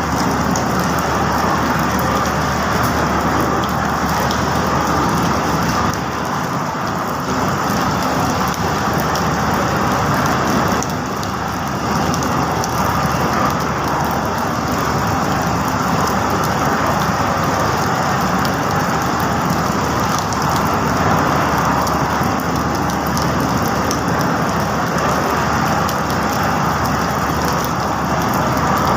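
Steady rain with road vehicles running through it, making a loud, even rushing noise.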